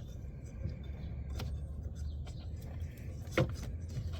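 A few sharp clicks and knocks from handling the plastic coolant reservoir tank and its fittings while it is fitted into place, the loudest about three and a half seconds in, over a steady low rumble.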